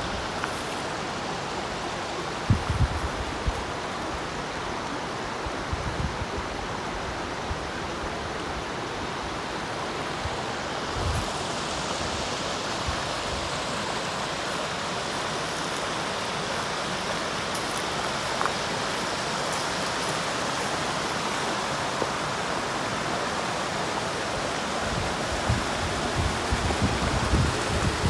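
Steady rush of flowing water from a shallow stream below a waterfall, with a few low thumps, more of them near the end.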